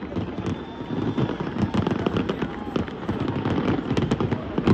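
Fireworks going off in quick succession: a dense run of sharp bangs and crackles.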